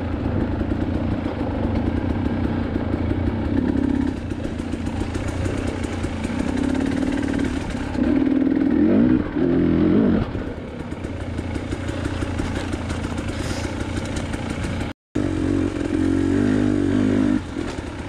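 KTM 300 TPI two-stroke dirt bike engine running at low speed on a rocky trail, the revs rising and falling as the throttle is worked, most clearly about eight to ten seconds in. The sound drops out for an instant about fifteen seconds in.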